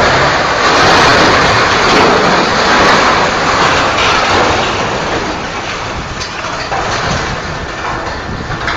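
Loud, steady rumbling noise of a large vehicle in motion, easing slightly toward the end.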